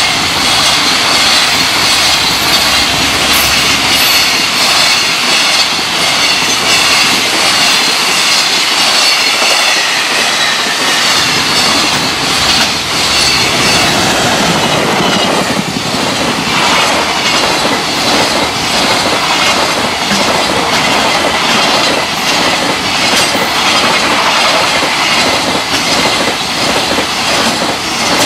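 Electric container freight trains passing at speed close by, their wagons rattling and clattering over the rail joints. About halfway through, a second train's electric locomotive passes with the hum of its traction motors, followed by its long string of container wagons.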